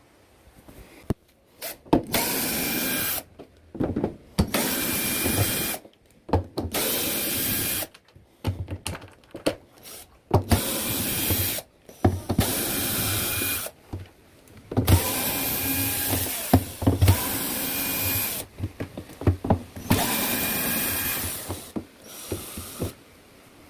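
Cordless drill-driver running in repeated bursts of one to two seconds, with clicks and knocks between them, as screws are taken out of a top-load washing machine during disassembly.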